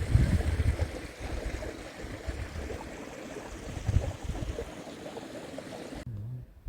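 Strong wind gusting and buffeting the microphone, a rough, uneven rumble that swells and fades; it cuts off suddenly about six seconds in.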